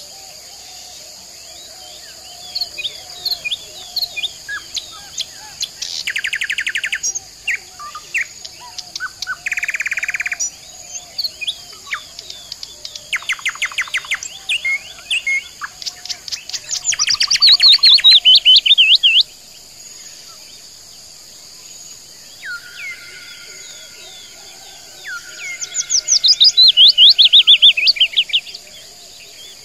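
Several songbirds singing: scattered chirps and rapid trills, with two loud warbling phrases about halfway through and again near the end, over a steady high insect drone.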